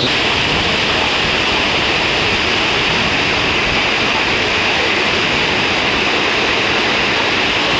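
River water pouring over a low weir, a small waterfall: a steady, even rush of white water.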